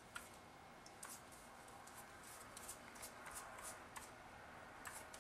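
Near silence with faint soft scratches and a few light ticks from hands working the edge of a raw pie crust on a countertop.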